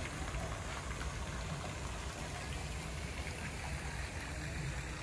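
Steady rushing and splashing of a swimming pool's cascading fountains heard from across the grounds, with a low rumble underneath.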